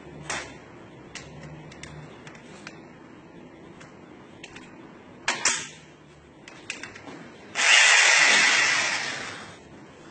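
Electric drill fitted with a nibbler sheet-metal-cutting attachment, run in one short burst of about two seconds near the end that starts abruptly and dies away as it stops. A few sharp knocks and clicks from handling the tool come before it.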